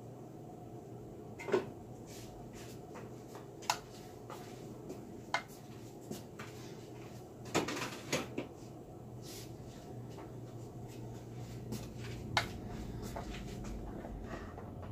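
Closed electric waffle maker cooking, with a steady low hum and about half a dozen scattered sharp clicks and pops.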